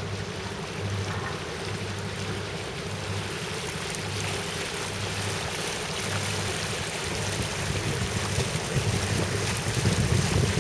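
A yacht's engine running steadily under way, a low drone with a slow throb, mixed with wind on the microphone and water moving past the hull; the wind and water get louder near the end.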